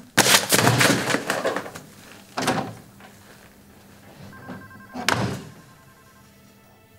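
A burst of clattering, rustling movement, then two separate thuds a few seconds apart, the later one a door being shut hard.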